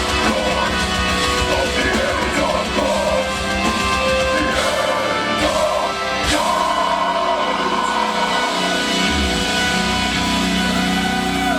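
Metal band playing live, with heavily distorted guitars, fast drumming and vocals. About six seconds in it closes on a cymbal crash, and a held, ringing chord follows with a few drum hits.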